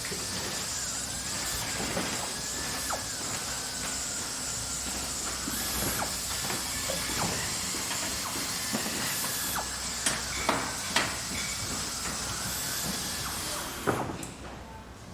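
Factory machinery ambience: a steady mechanical hiss and hum, with a faint wavering squeal in the first few seconds. Several sharp knocks come about two-thirds of the way through and another near the end, then the noise drops away.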